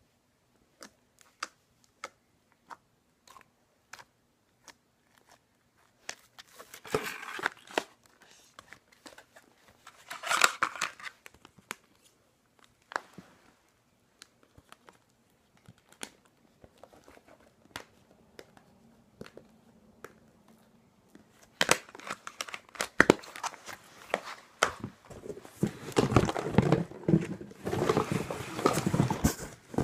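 Toy slime being stretched and poked by hand, with scattered sharp clicks and crinkling. There are two short crackly bursts about a quarter and a third of the way in, and denser crackling and clicking over the last quarter.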